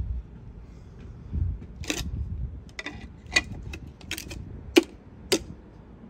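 Wooden splitting wedges knocking against each other and the log as they are picked up and set down: about six sharp wooden clacks in quick succession, the loudest near the end.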